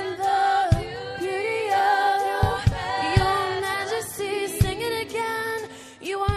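Music with singing: voices holding long, sustained notes, with a few low drum hits.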